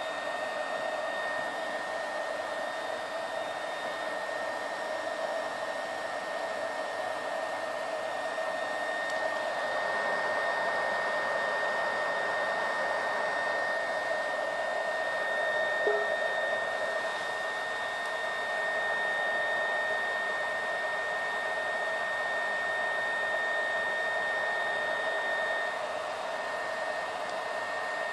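BioLite CampStove's built-in fan running steadily, forcing air into the fire burning in the chamber: an even rush of air with a thin high whine over it. A single small tick about halfway through.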